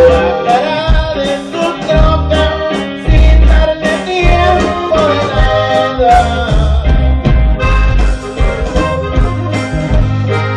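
Live band music: an accordion melody over guitar and a bass line on a steady beat.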